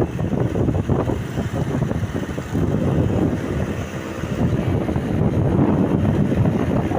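Low, uneven rumble of a bus running, with wind buffeting the microphone.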